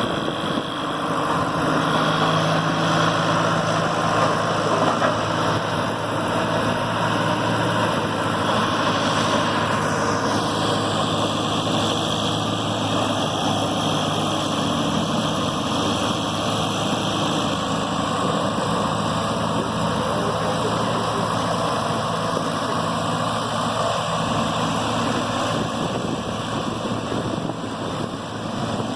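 An engine idling steadily, a continuous low hum that holds the same level throughout.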